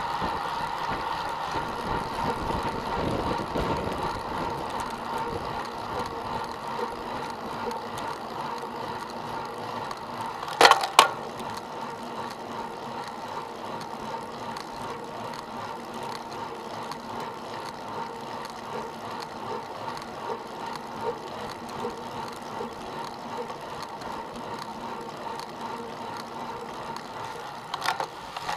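Road bicycle riding on asphalt, heard from a camera on the bike: steady tyre and drivetrain noise, with a quick pair of sharp clicks about eleven seconds in and another click near the end.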